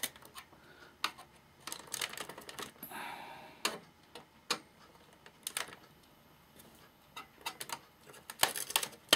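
Irregular small metallic clicks and scrapes of hand tools working a tight fitting loose on a Sansui AU-X111 amplifier, with a short rasping scrape about three seconds in.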